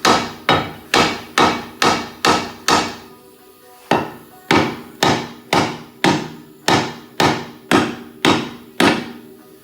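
Repeated hammer blows on a car's steering knuckle, about two a second, each ringing of metal, with a short break about three seconds in. The knuckle is being knocked forward to free it from the CV axle.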